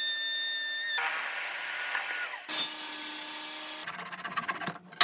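Short, abruptly cut snippets of woodworking power tools: a steady high whine, then a noisy cutting sound with a pitch falling as the tool winds down, another steady whine, and a fast rattling near the end, closed by a sharp knock.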